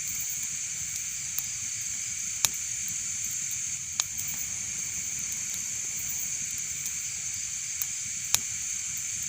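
Fire burning in a fireplace: a steady hiss broken by about five sharp crackling pops, the loudest about two and a half seconds in and near the end.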